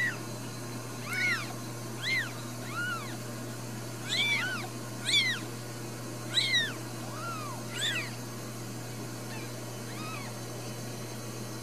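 Newborn Ragdoll kittens mewing: a string of short, high cries, each rising then falling in pitch, about one a second, growing fainter in the last few seconds.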